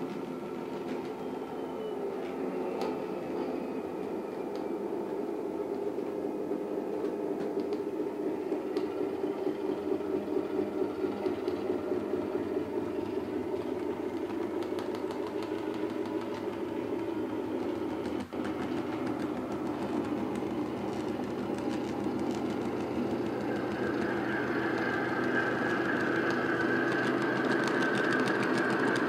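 Model railway locomotives running on the layout: a steady mechanical hum with a regular beat, joined about two-thirds of the way through by a higher whine that grows louder as a pair of GB Railfreight Class 73 models draws near.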